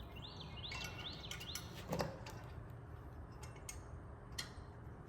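Light metal clicks and a knock from handling the trailer jack's parts while refitting its retaining clip, with a bird chirping several times in the first two seconds.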